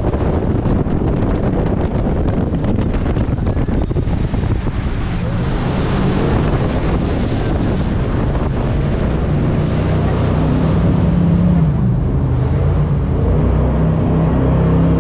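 Jet boat running at speed on a river, with heavy wind buffeting the microphone over the rush of water. From about halfway the engine's note comes through more clearly, its pitch wavering a little near the end.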